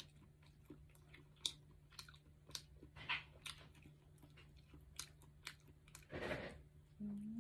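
A person chewing and biting into a firm handmade chicken meatball, with small wet mouth clicks throughout and a louder bite about six seconds in. A short hummed voice sound comes near the end.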